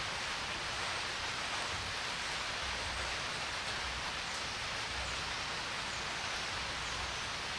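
A steady hiss with no distinct events; the soldering itself makes no sound that stands out.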